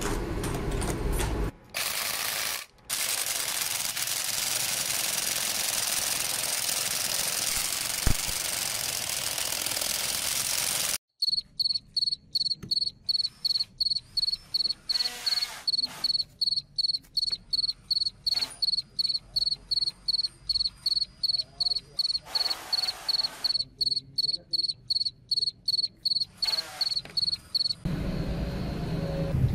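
Steady electric welding sizzle for about ten seconds. Then a homemade drill-powered hammer attachment pounds a steel pipe punch down into a wooden block in rapid even strokes, about three a second, with a high ringing tone on each stroke.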